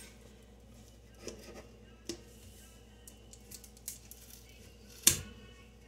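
Light clicks and rustles of kitchen containers and utensils being handled, with one sharp click about five seconds in.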